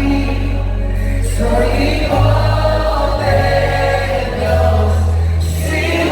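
Live gospel worship music: a choir of voices singing over low sustained bass notes that change every second or so.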